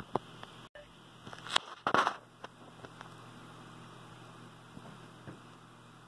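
The Mooney M20C's cabin, heard through the headset intercom, gives a faint steady hum. Several short clicks and crackles come in the first two seconds, and the audio briefly cuts out about three quarters of a second in.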